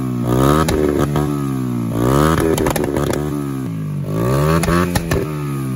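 Small motorcycle engine revved in three throttle blips about two seconds apart, each rising in pitch and then falling back toward idle.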